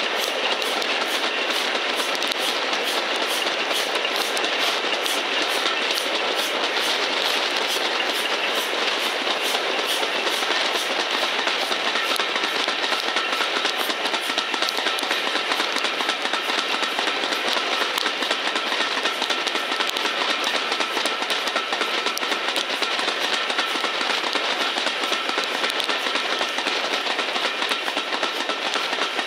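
A passenger train hauled by an LMS Black Five 4-6-0 steam locomotive, heard from an open carriage window while running at speed: a steady rush of wheels on rail and passing air. A regular beat about twice a second fades out about ten seconds in, and a faint steady whine comes in about halfway through.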